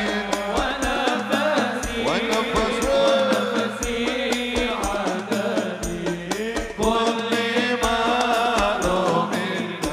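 Sholawat sung by a group of voices over hadroh percussion: frame drums with jingles and darbuka-type hand drums beating a quick, steady rhythm.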